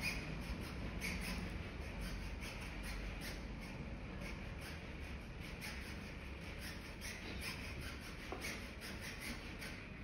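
Faint, scattered small clicks and handling sounds over a low steady hum.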